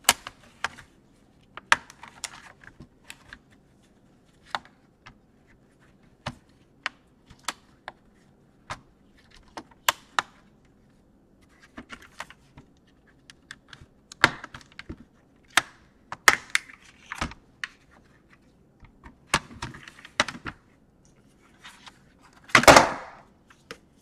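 Plastic snap-clips of a Lenovo ThinkPad E570's top case popping loose as the shell is pried apart with a guitar pick: irregular sharp clicks and snaps, with a louder, longer crack near the end.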